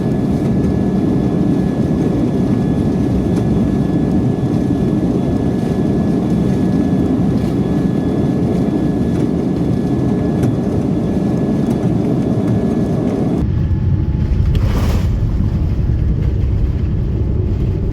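Steady engine and airflow rumble inside a Boeing 787 airliner cabin around landing. About thirteen seconds in the sound changes abruptly to a duller rumble, with a brief rushing sound a second later.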